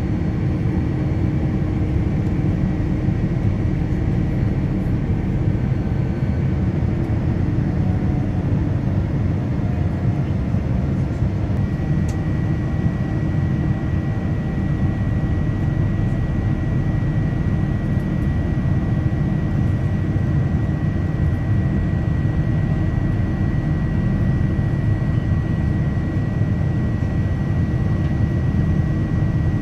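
Steady cabin roar of a Boeing 787 Dreamliner in the climb after takeoff: jet engine and airflow noise heard from a window seat. A thin, high, steady tone grows stronger about twelve seconds in.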